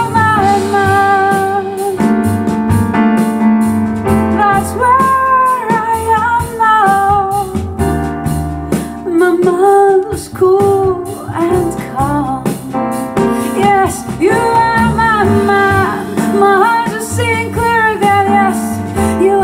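A slow song playing on a hi-fi system: a woman sings long, wavering held notes over keyboard and a low bass line.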